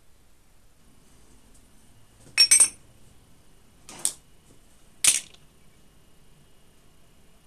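Sharp metallic clinks of metal parts being handled and set down: a quick double clink about two and a half seconds in, then two single clinks about a second apart.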